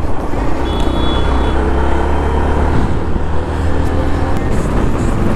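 Motorcycle being ridden at road speed: a steady engine note under heavy wind rumble on a helmet-mounted microphone. A brief high tone sounds about a second in.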